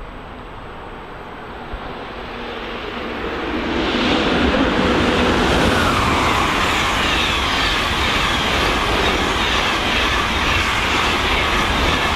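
DB Class 101 electric locomotive hauling Intercity coaches through at speed. The rumble builds over the first few seconds and turns loud about four seconds in, with a falling whine as the locomotive goes by, then the steady rolling noise of the coaches' wheels on the rails.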